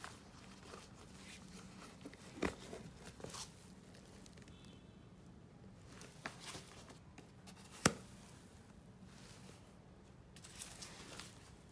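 Faint handling of a suede handbag: rustling of the white protective wrapping on its straps and leather being flexed, with a few small knocks and clicks, the sharpest about eight seconds in, over a faint steady hum.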